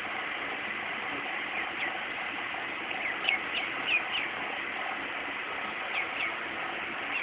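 Duckling peeping: short, high peeps that fall in pitch, in small clusters, the longest a quick run of about five a few seconds in, over a steady background hiss.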